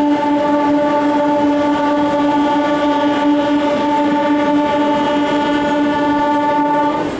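A train horn sounding one long, steady blast, over the running noise of a moving train. The blast cuts off suddenly near the end.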